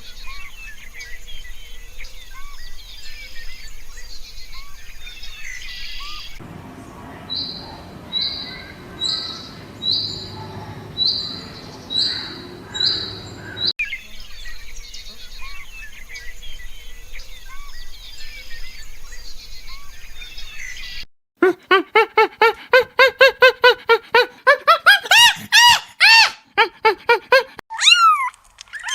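A sequence of animal calls: a chorus of bird chirps, then a high call repeated about once a second, the chorus again, and from about three-quarters of the way in a run of loud, rapid calls climbing in pitch.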